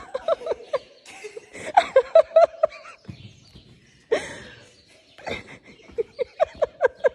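A person laughing in several bouts, each a quick run of short 'ha' pulses.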